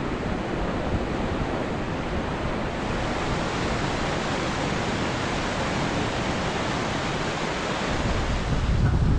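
Steady rushing wind buffeting the microphone, with a stronger low gust near the end.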